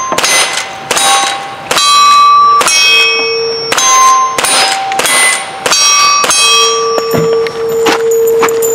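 A rapid string of about ten gunshots at steel plate targets, each hit followed by the plate ringing at its own pitch. Near the end one plate keeps ringing in a steady tone.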